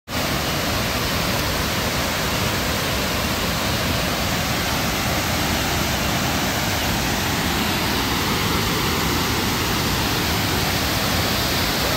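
Nugget Falls, a tall waterfall pouring down a rock face onto boulders, heard close by as a loud, steady rushing of water.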